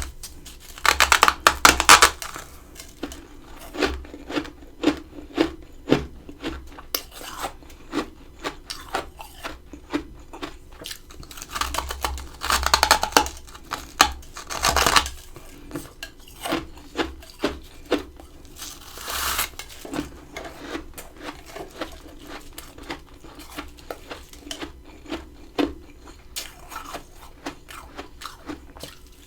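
Close-miked crunching of freezer frost ice, with a few longer, louder crunches among many small crackles.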